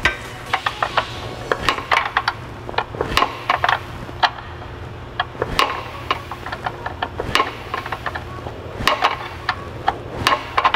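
Hand wrench loosening a clutch hydraulic line fitting at a line block, giving short, irregular bursts of metallic clicks and clinks.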